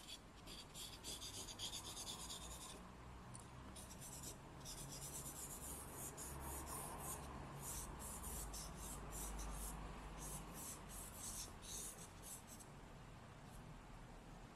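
Charcoal scratching on drawing paper in quick, short shading strokes, several a second, with a brief pause about three seconds in. The strokes stop about two seconds before the end.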